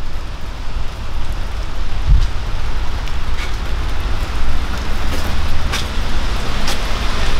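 Steady outdoor rain and wind noise on a handheld microphone: a low rumble under an even hiss, with a few light ticks in the second half.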